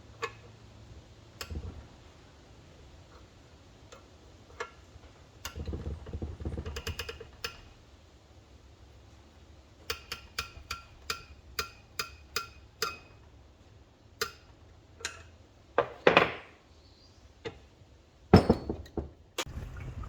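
Petrol dripping from a Model T's fuel tank into a container during a slow tank drain: ringing plinks that repeat at the same pitch, about two a second for a stretch in the middle. Two louder rushing noises come near the end.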